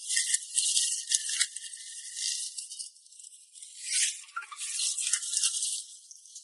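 Thin, hissy shaker-like rattling with no low end, coming in waves that swell and fade over the few seconds.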